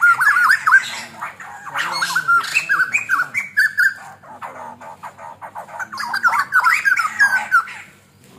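White-crested laughingthrush calling in rapid chattering bouts, three of them, with a short quieter pause in between, fading out near the end.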